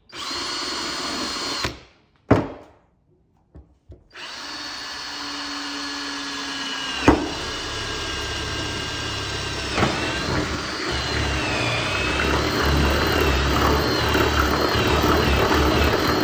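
Makita cordless drill boring a hole through a car's boot lid panel. A short run of about two seconds, a single knock, then a long continuous run from about four seconds in, its whine wavering, with two sharp clicks along the way.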